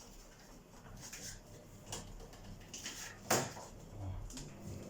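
A few short clicks and knocks from refrigerator door parts being handled and pried loose, with one sharp knock a little over three seconds in.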